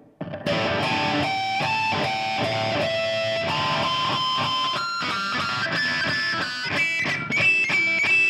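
Electric guitar sounding a run of pinch harmonics, the squealing overtones made by picking downward with the thumb grazing the string. They start about half a second in and ring out one after another, stepping higher in pitch as the picking point moves along the open string.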